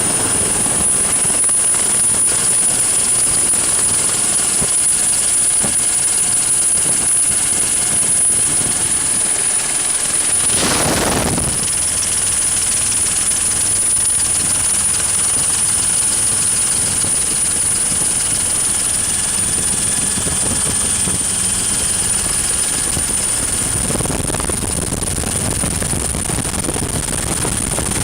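Helicopter in flight: a steady loud engine and rotor noise with a constant high-pitched turbine whine over it, and one brief swell about eleven seconds in.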